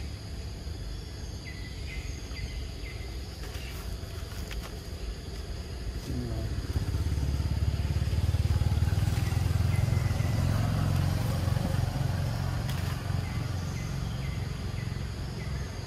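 Low engine rumble of a passing motor vehicle, swelling about six seconds in and fading slowly, over a steady outdoor background with faint short chirps.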